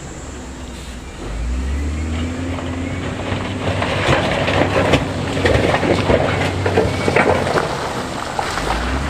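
Diesel engine of heavy earthmoving equipment rising in load, then several seconds of stone and rock clattering and grinding as loose stone fill is dumped or pushed.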